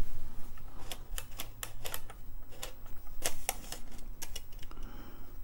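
Radio Shack TRS-80 Quick Printer II electrostatic printer switched on and trying to print: a string of irregular sharp ticks over a low hum that stops after about four seconds.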